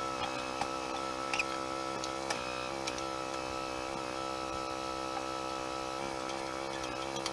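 A steady mechanical drone holding one pitch, with a few faint light clicks through it.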